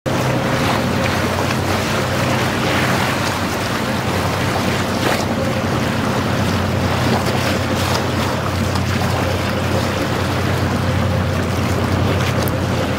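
Wooden motorboat under way: the inboard engine runs steadily beneath the rush of water along the hull and wind buffeting the microphone.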